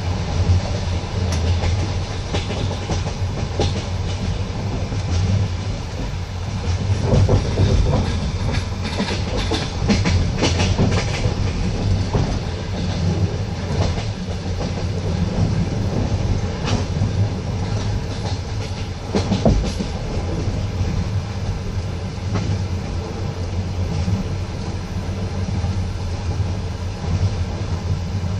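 Passenger railway carriage running at speed, heard from inside: a steady rumble of wheels on track with irregular clicks and knocks as the wheels pass over rail joints.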